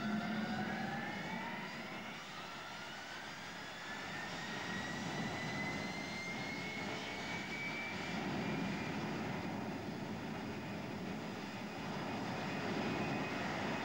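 The four Pratt & Whitney F117 turbofans of a C-17 Globemaster III spooling up on the runway toward takeoff power. Their whine rises steadily in pitch, then holds, over a broad jet rumble that swells partway through.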